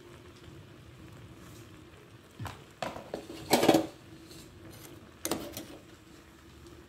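Metal kitchen utensils clinking and knocking against pots and the steel stove top: a few separate clatters, the loudest about halfway through, over a low steady hum.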